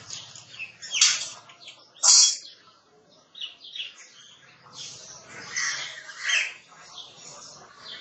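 Birds chirping and squawking in short, high calls scattered throughout, the two loudest about one and two seconds in.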